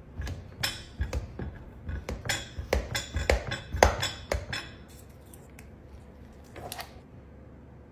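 Kitchen knife cutting a freezer-set mango float in a glass baking dish, the metal blade clicking and tapping against the glass in quick, irregular strokes for the first four and a half seconds. A metal spatula then slides under a piece, with one more small clatter near the end.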